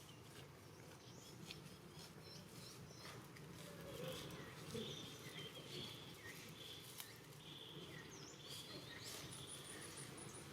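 Faint, short high-pitched animal chirps and squeaks, repeated through the middle of the stretch, with a few soft clicks and rustles.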